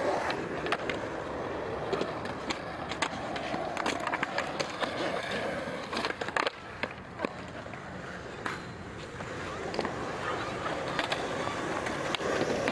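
Skateboard wheels rolling on asphalt, with many sharp clacks of the board popping, flipping and landing during flatground tricks.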